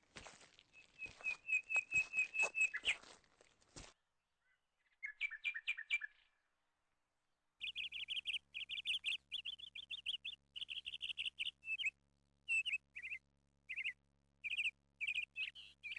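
Small birds chirping in short repeated high trills: one run about a second in, a brief one around five seconds, then many quick chirps from about eight seconds on. In the first few seconds there is also rustling and stepping through dense brush.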